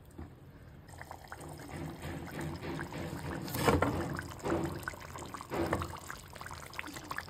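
A knife scraping and breaking through the baked wheat-dough seal around a clay handi's lid, then the clay lid prised up off the cooked chicken curry. Irregular scrapes and knocks, the loudest about halfway through, mixed with wet, liquid sounds.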